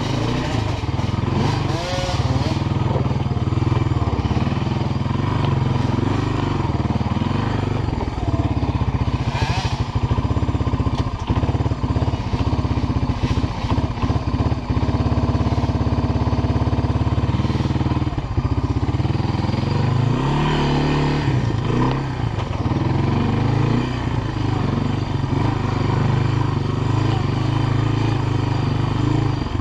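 Honda FourTrax ATV engine running steadily under way, heard up close from the rider's seat. About twenty seconds in, the engine pitch briefly dips and comes back up.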